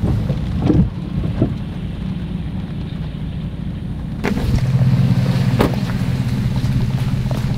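Vehicle engine running and tyre noise heard from inside the cab while driving a wet dirt track, with a few short knocks in the first seconds. About four seconds in, a steadier, louder engine hum takes over.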